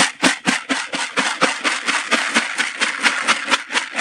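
Carp bait pellets rattling and swishing in a plastic bucket as it is shaken back and forth to coat them in liquid attractant, in an even rhythm of about four to five shakes a second.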